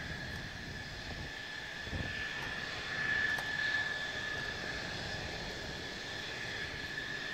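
Mitsubishi F-2 fighter's General Electric F110 turbofan at taxi power: a steady high whine over a low rumble, swelling slightly about three seconds in.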